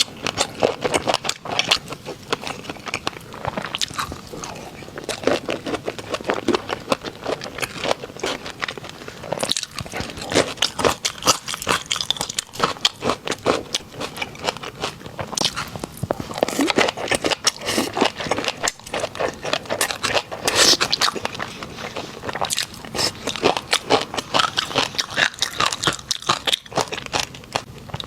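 Close-miked chewing of a crunchy snack: repeated crisp bites and crackling crunches, dense and irregular.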